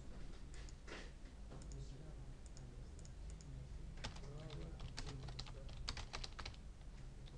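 Keystrokes on a computer keyboard: a few key clicks about a second in, then a quick run of typing from about four seconds in, over a faint steady hum.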